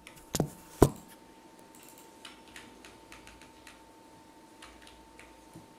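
Computer keyboard typing: two sharp, loud keystrokes in the first second, then scattered light key taps. A faint steady whine runs underneath.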